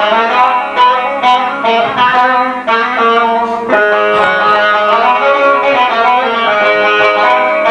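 A long-necked folk string instrument, held upright, playing a melody of held notes that shift in pitch.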